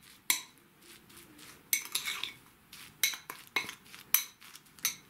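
A metal spoon stirring a thick garlic marinade in a ceramic bowl, clinking and scraping against the bowl about seven times at irregular intervals, with quiet between the strokes.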